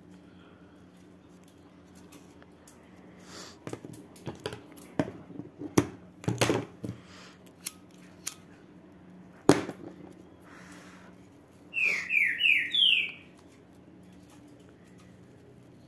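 Small clicks and taps of a ribbon bow and a plastic lighter being handled on a table, then four quick high chirps about twelve seconds in, each falling in pitch, from a bird.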